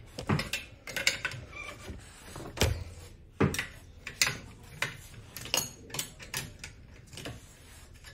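Steel wrench clicking and clinking on the front axle nut of an electric scooter's wheel as the nut is worked round, a string of irregular sharp metal clicks and knocks.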